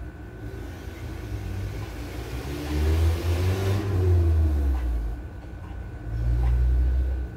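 A motor vehicle passing by: its engine note rises and then falls around the middle over a heavy low rumble, and a second rumble swells near the end.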